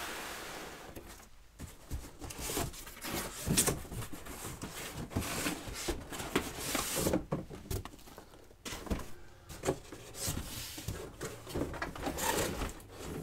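Cardboard shipping box being opened by hand: flaps pulled and bent back, cardboard scraping and rustling, with irregular knocks as a boxed item inside is shifted and lifted out.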